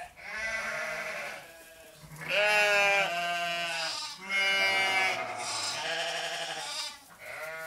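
Sheep bleating: about five long, quavering bleats, one after another.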